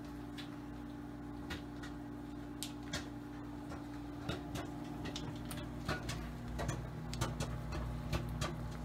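Silicone spatula stirring hard green candy melts in a glass bowl: scattered light clicks and taps of the melts and spatula against the glass, more frequent in the second half, over a steady low hum.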